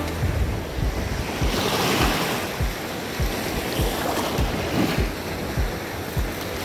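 Gulf surf washing up on the beach, swelling twice, with wind on the microphone. A low thump repeats about three times a second underneath.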